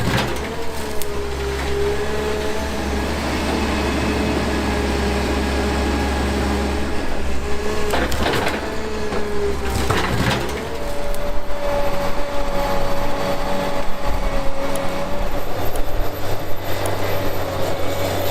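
Heavy logging machine's engine running steadily under load, with a couple of knocks about eight and ten seconds in.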